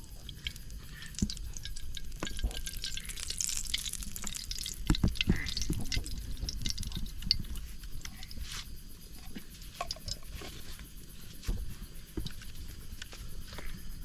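Cooking oil going into a hot kadai: liquid pouring and dripping, with scattered light crackles and clicks.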